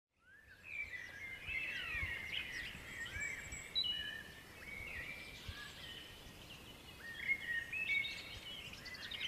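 Several songbirds singing together, a busy mix of overlapping chirps and gliding whistled notes.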